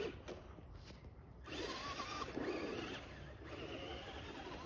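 Electric RC car's motor whining as it drives across the grass, dropping away briefly about a second in and then picking up again.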